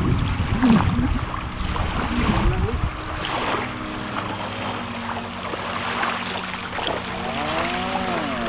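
Wind buffeting the microphone and small waves washing at the shoreline, with water splashing as a wet cast net is hauled in from the shallows. The wind gusts are strongest in the first few seconds, then ease to a steady hiss.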